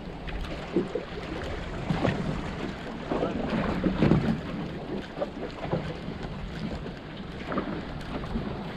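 Sea water slapping and lapping against the side of a small boat, with wind buffeting the microphone. A few louder splashes come about two to four seconds in.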